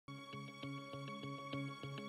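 Background music starting at once: held notes under a quick, even pulse of about three beats a second.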